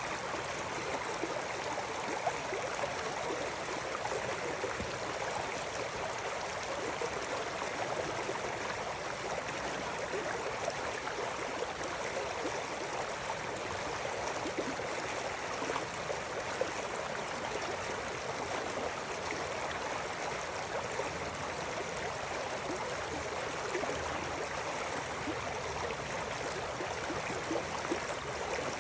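River water running steadily, an even rushing flow with no breaks.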